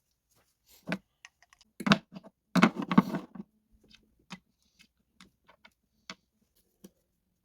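Metal garden shears being handled, with irregular clicks and knocks; the loudest cluster of knocks comes about two to three seconds in, followed by scattered lighter ticks.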